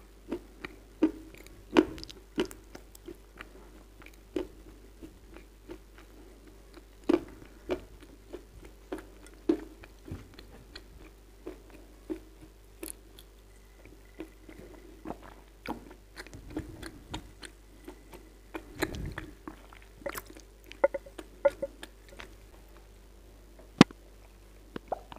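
Close-miked chewing and crunching of soaked Kyrgyz edible clay: irregular crisp crunches and wet mouth clicks, with sips from a cup in between.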